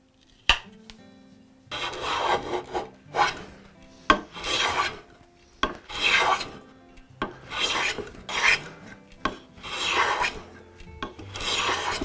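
A restored Stanley Bedrock hand plane taking full shavings along the edge of a hardwood board: six rasping strokes, each about a second long and about two seconds apart. There is a single sharp knock about half a second in.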